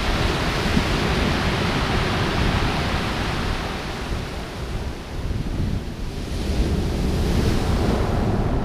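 Surf breaking and washing up a pebble beach, swelling near the start and again near the end, with wind buffeting the microphone.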